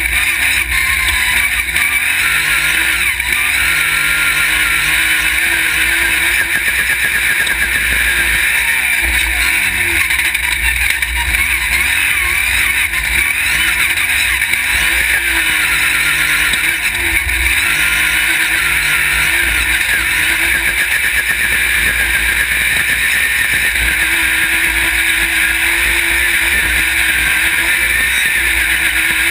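Off-road race buggy's engine running hard, heard right beside the engine, its pitch rising and falling as the driver works the throttle and gears, over a steady rush of wind and dirt noise.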